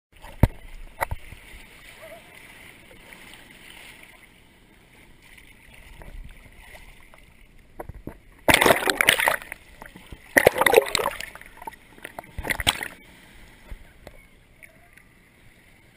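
Shallow ocean surf washing and splashing against a waterproof action camera held at the water's surface, with three loud bursts of splashing in the second half.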